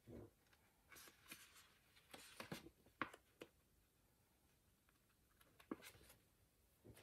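Small scissors snipping washi tape and paper at a planner page's edge. The sound is faint: scattered soft clicks and paper rustles, with a few sharper snips.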